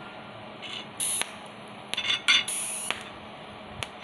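200 A TIG welder's torch fired in several short hissing bursts, with a few sharp clicks between them: the high-frequency arc starter sparking from the tungsten toward the workpiece, a test of the repaired arc-start board.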